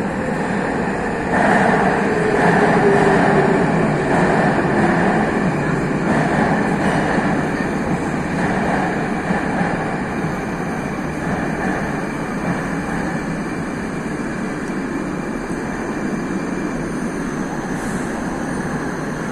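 Moscow Metro train running through the station, a steady rumble with rail noise that echoes under the vaulted hall. It swells about a second and a half in and eases off after a few seconds.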